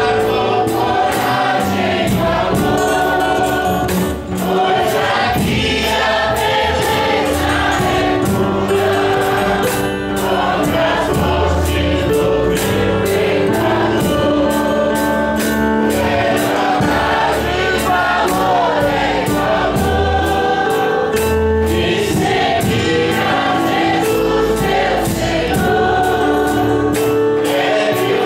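Gospel music: a group of voices singing together over a steady beat.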